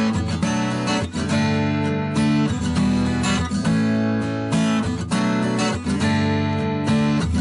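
Acoustic guitar music, chords strummed on a steady beat of about one accent a second.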